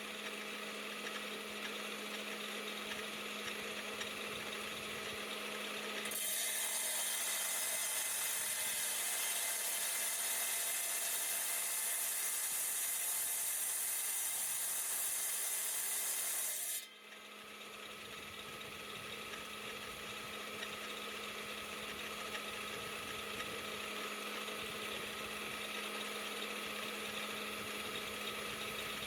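Rock saw running with a steady motor hum while cutting through an agate. A louder hiss joins about six seconds in and cuts off suddenly near the seventeen-second mark.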